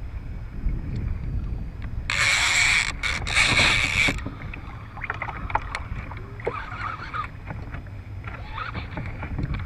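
Fishing reel's drag buzzing in two bursts of about a second each, a couple of seconds in, as a hooked shark pulls line off against the bent rod. Low wind rumble on the microphone underneath, with scattered small clicks afterwards.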